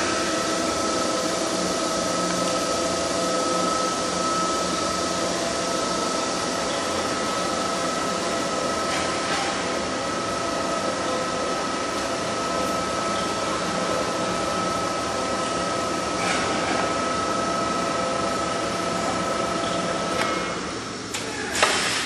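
BTF II spiral duct forming machine running steadily as it rolls sheet-metal strip into spiral duct, a constant whine over an even mechanical noise. About twenty seconds in the whine stops and the noise drops, followed by a single sharp knock.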